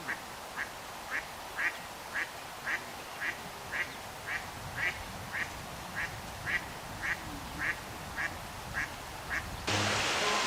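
Eastern spot-billed duck quacking in a steady series of short, evenly spaced quacks, about two a second. Music comes in near the end.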